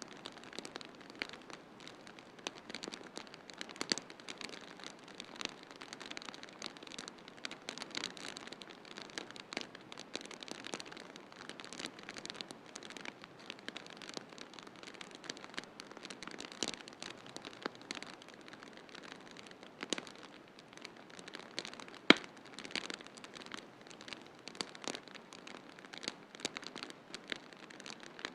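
Wood fire crackling in a fireplace: a steady run of small irregular pops and snaps over a soft hiss, with one sharp louder pop about three-quarters of the way through.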